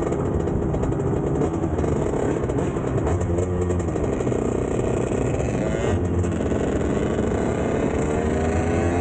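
Two-stroke dirt bike engine running while riding, its revs rising and falling several times, with other motorbikes running close by.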